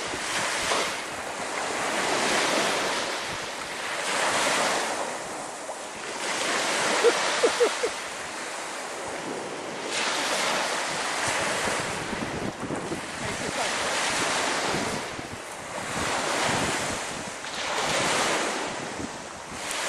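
Small waves washing onto a sandy shore, swelling and fading every couple of seconds, with wind buffeting the microphone. About seven seconds in, three short sharp sounds stand out above the surf.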